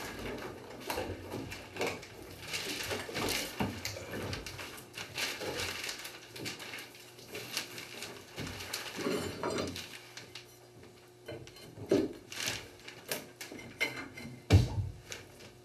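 Irregular knocking, scraping and rustling as pieces of a rotten log face are worked out of a log wall by hand and fall onto plastic sheeting.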